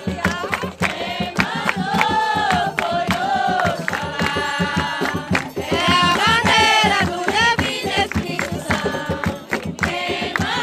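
Group of devotees singing a devotional song to Yemanjá together, with long held notes over a steady percussion beat.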